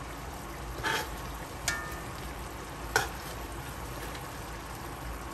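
Chicken pieces sizzling in a pot of their own juices and oil, with a steady hiss. Metal tongs clink against the pot three times as the pieces are turned; one clink rings briefly.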